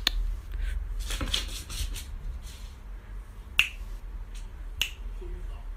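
Several sharp snapping clicks: one at the start, a few fainter ones over the next second or so, then two louder single snaps about a second apart in the second half, over a low steady hum.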